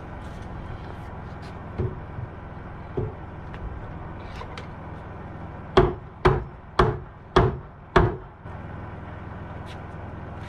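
Hammer blows on wood: a few light knocks, then five hard, evenly spaced strikes about two a second, over a steady low hum.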